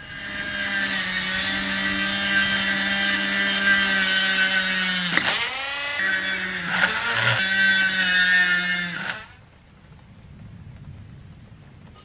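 Mechanical alarm clock's alarm ringing, its hammer buzzing rapidly against the bell. About five seconds in the ringing slows with a falling pitch and stops. It starts again a second later, falters once more, and cuts off suddenly about nine seconds in.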